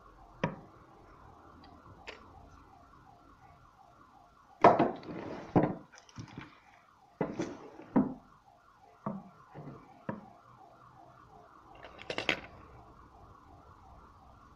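Bench handling noises: a thin plastic sheet crinkling and rustling in short bursts as it is laid over a small watch movement, with light taps and clicks on the bench between. A faint warbling tone repeats quickly underneath.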